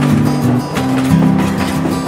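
Background music with a steady beat and a plucked-string melody.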